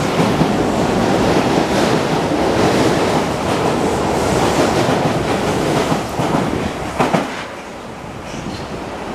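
Osaka Metro Chuo Line train running on its track: a steady rumble of wheels and car noise that drops away after a sharp click about seven seconds in.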